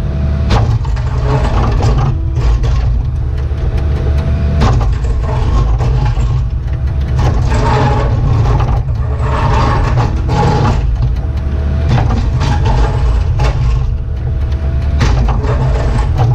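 Cat 304E2 mini excavator's diesel engine running under load, heard from inside the cab, with a hydraulic whine that comes and goes several times and scattered knocks as the bucket digs through compacted crushed stone.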